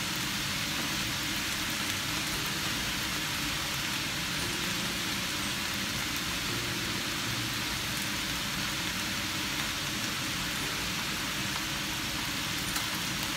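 Vegetables and pork frying in a pan on a gas stove: a steady sizzling hiss, with a few faint ticks.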